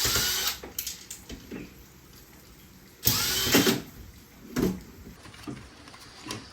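A power drill-driver run in two short bursts, about three seconds apart, its motor whine rising as it spins up, with small clicks and handling noise between the bursts.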